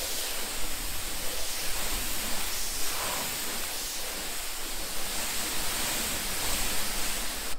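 Pressure washer spraying a steady fan jet of water onto a car body panel, a continuous hiss that cuts off near the end. The car is being rinsed after a spray-on sealant.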